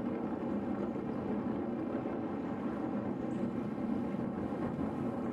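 Steady rush of wind over the microphone, with road noise, from a bicycle being ridden.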